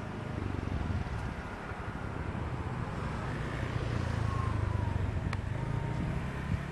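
Aircraft engines running at a distance: a steady low rumble.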